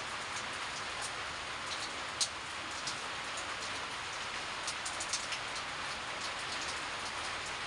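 Steady hiss of background noise with a few faint, scattered clicks; no bird calls.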